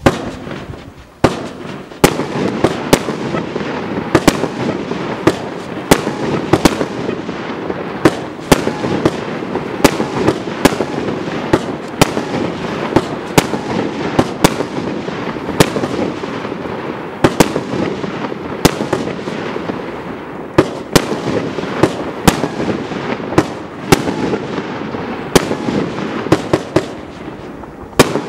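Gemstone Fireworks Bull Fighter 36-shot barrage cake firing: a rapid string of loud bangs, about one or two a second, with a steady noise filling the gaps between them. The first shots come about a second in, and the bangs carry on at an even pace.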